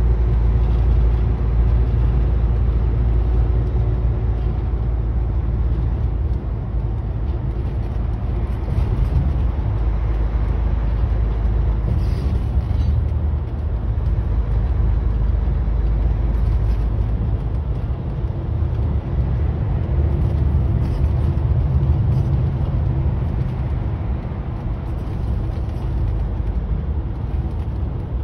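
Steady low drone of a truck's engine and tyres heard from inside the cab while cruising at freeway speed, with a constant deep rumble and a faint steady hum above it.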